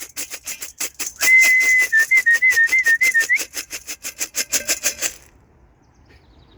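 A person whistling to call racing pigeons in to the loft: one held whistled note that breaks into a wavering trill. Under it runs a fast, even rattle that stops about five seconds in.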